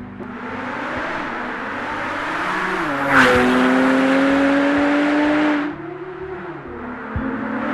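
Porsche 991.2 Turbo's twin-turbo flat-six, breathing through an Inconel performance exhaust, accelerating at wide open throttle. The engine note rises, drops sharply at an upshift about three seconds in, then climbs again. Near six seconds in the sound falls away as the throttle lifts, and it builds again near the end.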